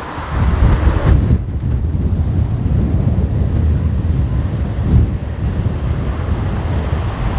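Strong gusty wind buffeting the microphone: a heavy, uneven low rumble that swells and drops.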